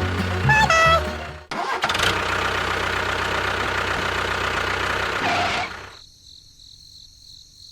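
A short run of pitched notes, then an engine running steadily for about four seconds before cutting out, leaving a faint hum.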